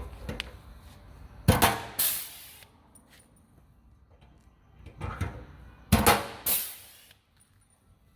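Rivet gun setting two rivets through the vehicle's side panel. Each rivet gives a sharp snap followed at once by a short fading hiss, about four and a half seconds apart.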